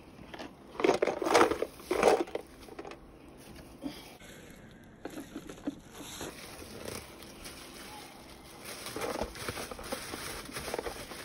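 Thin plastic shopping bags crinkling and rustling as clothes are stuffed into them, loudest in a few bursts about one to two seconds in, then lighter rustling.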